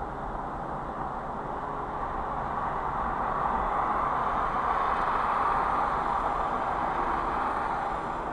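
Steady road and tyre noise heard inside a car driving on a freeway, swelling louder through the middle and easing near the end.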